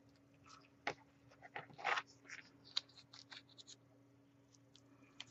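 Duct tape petals crinkling and rustling as they are pressed and arranged by hand around a bottle cap: short scattered crinkles and a few light clicks, the loudest about two seconds in, over a faint steady hum.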